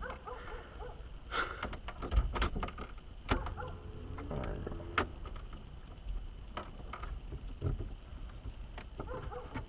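Scattered clicks, taps and light rattles of parts being handled and fitted back into a van's steering column.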